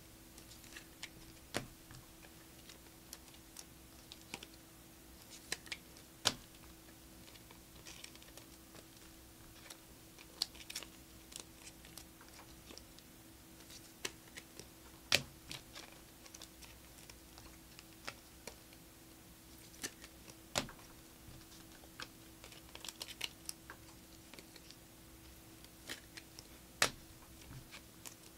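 Trading cards being handled on a table: scattered light clicks and taps as cards are flicked, squared and laid down, some in quick little clusters, over a faint steady low hum.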